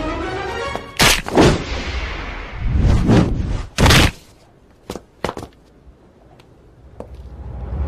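Film fight sound effects: music cuts off about a second in, then four heavy punch-and-fall hits with whooshes. A quieter stretch with a few faint ticks follows, and a swell rises near the end.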